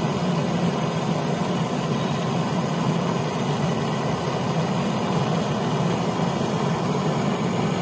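A steady, low machine hum, like a motor running without change.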